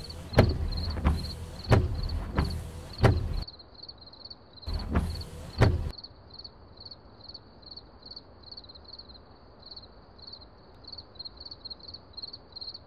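A run of about six heavy mechanical clunks, evenly spaced about two-thirds of a second apart, then one longer rumbling clunk, over a faint steady chirping of crickets.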